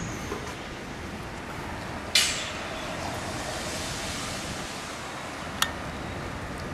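Steady outdoor construction-site background noise, with a sudden loud burst of hiss about two seconds in that fades away over about a second, and a single sharp click near the end.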